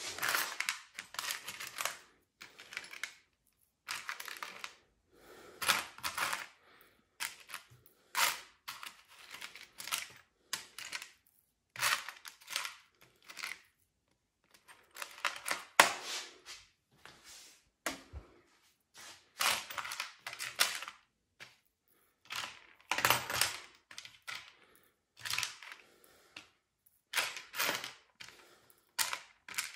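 Loose metal screws, bolts and washers clinking and rattling in a plastic tray as hands rummage through them. The clatter comes in irregular bursts of about a second, with short pauses between.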